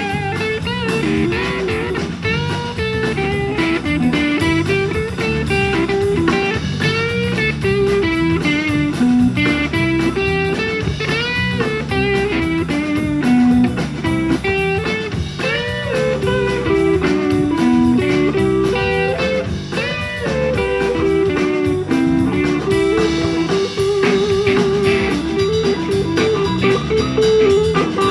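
Live blues-rock band playing an instrumental passage: an electric guitar lead with bent, sliding notes over drum kit and bass guitar, with a fast trill near the end.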